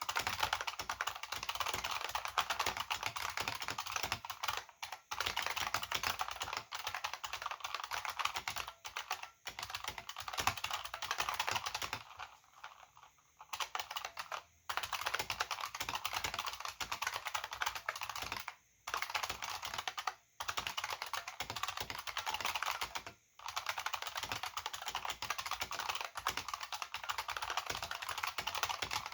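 Continuous typing on an AT&T KBD 305B-AA keyboard with buckling spring switches and two-part PBT dye-sub keycaps: a dense, fast run of keystrokes, broken by a few brief pauses, the longest about twelve seconds in.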